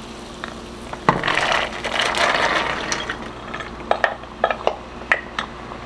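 Pinto beans poured from a glass container into a pot of boiling broth: a rattling, splashing pour for about two seconds, then a series of clinks and taps as the last beans are pushed out of the glass with a wooden spoon. A steady hum runs underneath.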